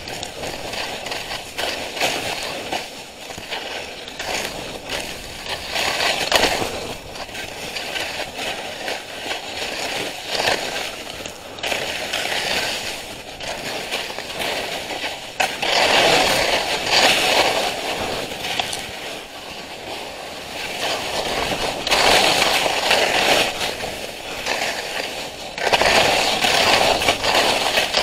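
Skis hissing and scraping over snow during a run, the sound swelling with each turn several times and easing between.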